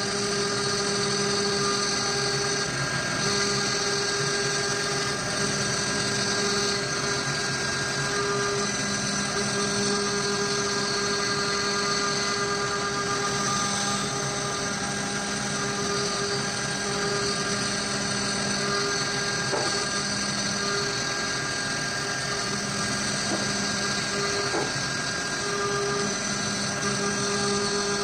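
Avid CNC router's spindle running at steady speed while a small straight bit mills a pocket into a wooden block: a constant motor whine over the hiss of the cut, with small shifts in tone as the bit changes direction.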